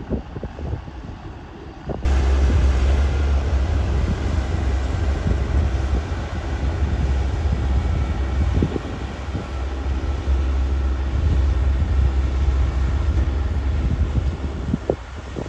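Diesel engines of a large dual-wheeled tractor and a wheel loader running steadily under load as they drive over and pack down a silage clamp. They are heard up close, strong and low, from about two seconds in, after a quieter start.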